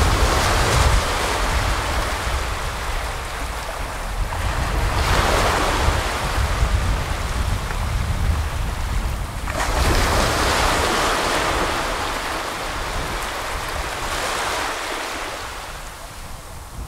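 Small sea waves breaking and washing up a sandy shore. Four swelling washes of surf come in roughly every five seconds, each fading as it spreads up the sand.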